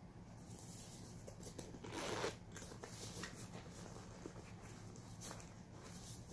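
A metal zipper on a small canvas saddlebag handbag is pulled open in one short rasp about two seconds in. Light rustling and clicks of the bag being handled can be heard around it.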